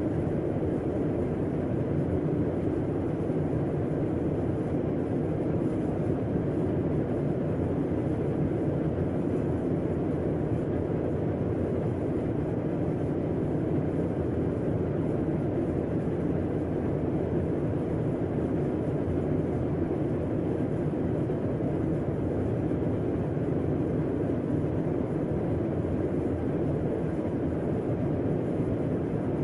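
Air conditioner running steadily: an even, low whooshing hum with no change in level.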